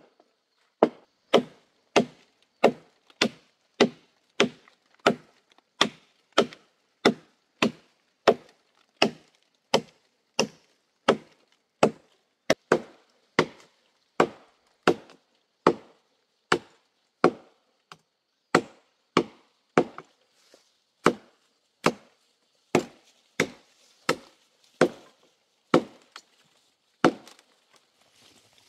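Machete chopping into a fallen tree trunk: a long, steady run of sharp woody strikes, about three every two seconds.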